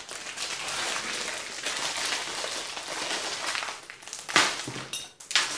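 Plastic bag of small candies crinkling and rustling steadily as it is handled, for about four seconds, followed by a few sharp clicks near the end.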